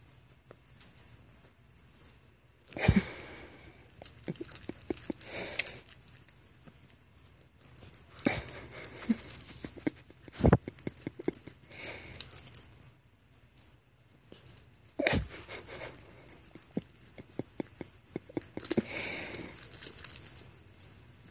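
A small dog on its back making short whimpering sounds in bursts every few seconds while a hand rubs its belly, with the rubbing of the hand through its fur and a few low thumps.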